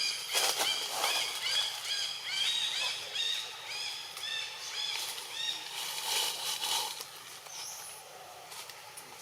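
Animal calls: a rapid run of short, high, squeaky chirps, several a second, with noisy rustling bursts about half a second in and around six seconds in. The calls thin out near the end.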